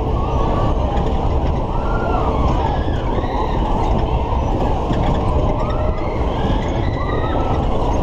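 Loud, steady rushing rumble of a Matterhorn fairground ride in full motion, heard from a rider's seat. Over it, short wails rise and fall about once a second.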